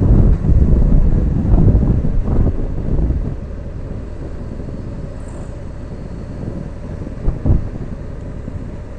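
Wind buffeting the microphone of a motorcycle riding at speed, over the low rumble of the ride. It is heavy and gusty for about the first three seconds, then settles steadier and quieter, with one brief gust near the end.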